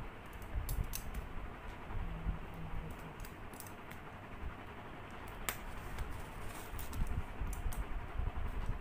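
Hands handling a cardboard shipping box: scattered light taps, clicks and dull bumps on the cardboard, with scissors working at the packing tape near the end.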